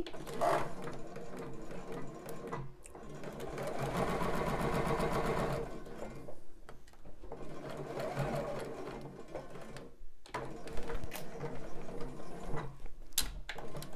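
Juki sewing machine stitching a long basting stitch in several runs, one longer steady run in the middle; a few sharp clicks near the end.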